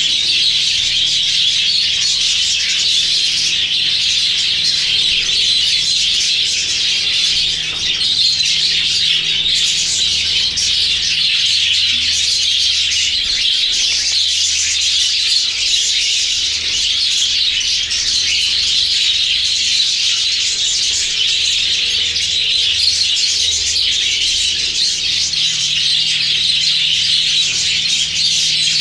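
A flock of budgerigars chattering and chirping continuously, many birds calling over one another in a dense, unbroken warble.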